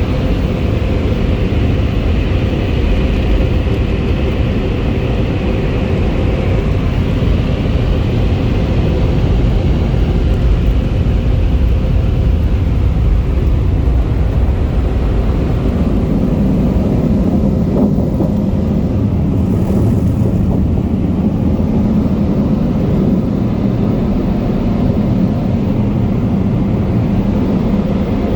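Car wash tunnel air dryers, Premier side dryers and Sonny's Mammoth blowers, blowing loudly and steadily. The low hum grows stronger about halfway through.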